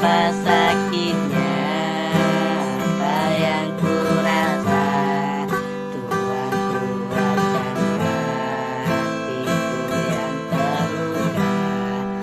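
Singing over a strummed acoustic guitar. The song cuts off suddenly at the end.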